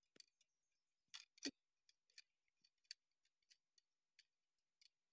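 Near silence, with a few faint, irregularly spaced clicks.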